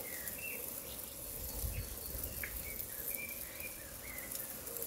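Small birds chirping: short, repeated high calls, some sliding in pitch, over a faint steady hiss.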